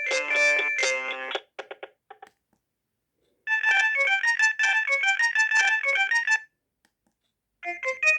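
Alcatel OneTouch E230X mobile phone playing its built-in ringtones one after another. One tune ends about a second and a half in with a few trailing notes. After a short pause, a brief melody of quick electronic keyboard-like notes plays for about three seconds. After another pause, the next ringtone starts near the end.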